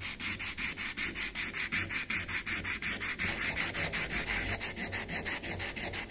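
Hand sanding a steel knife blade with a folded sheet of sandpaper: quick, even back-and-forth rasping strokes, several a second.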